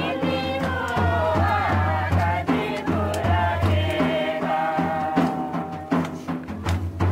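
Women singing a Mundari welcome song (durang) together, a wavering sung melody, with a low drum beating beneath it.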